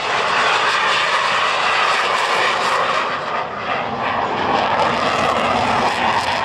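USAF F-16 Fighting Falcon jet making a loud, steady jet roar as it flies a demonstration pass, with a slight dip about halfway through.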